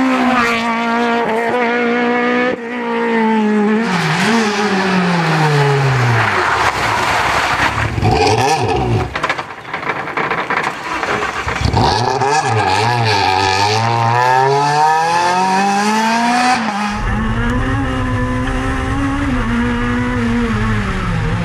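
Rally car engines revving hard and lifting off in turn, the pitch climbing and dropping again and again as Peugeot 106 and Renault Clio rally cars drive past. Near the end, a camera on the Clio's door picks up its engine over a heavy low rumble of wind and road noise.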